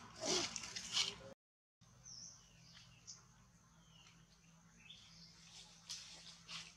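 Outdoor ambience with birds chirping now and then. A louder burst of high squeaky sound comes in the first second, and the sound cuts out completely for a moment about a second and a half in.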